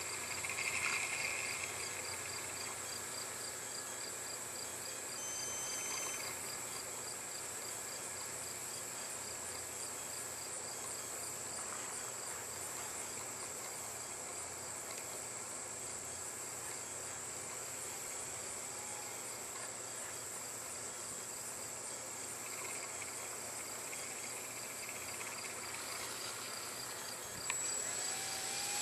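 Crickets and other insects chirping in a steady, evenly pulsed rhythm over a high insect drone. Near the end there is a sharp click and the sound grows louder.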